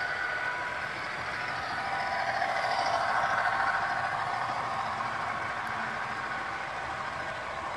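Model diesel switcher locomotive passing close with a train of boxcars: its sound decoder plays a diesel engine over the rumble of wheels on the track, growing to its loudest about three seconds in and then easing off.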